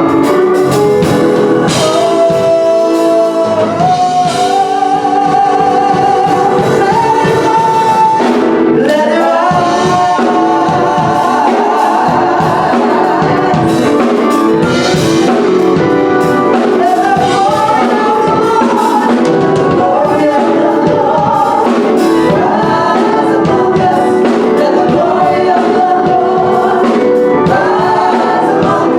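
Gospel music: a choir singing with instrumental accompaniment.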